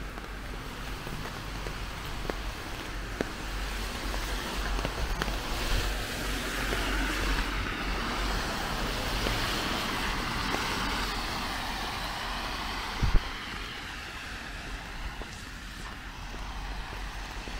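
Road traffic on a wet street: a vehicle passes with a tyre hiss that swells from about four seconds in and fades by about fourteen seconds. A brief sharp thump comes near the thirteen-second mark.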